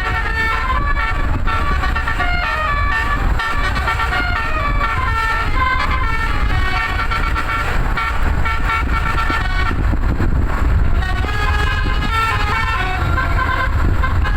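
Bus telolet basuri horn, a twelve-trumpet musical air horn, playing a tune of stepping pitches over the low rumble of the bus engine.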